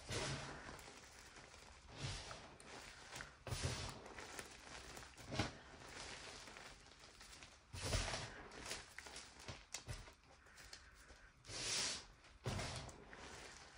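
Hands crushing and scooping crumbled gym chalk: dry, crunchy crumbling and soft powdery rustling in irregular bursts, with a few louder crunches.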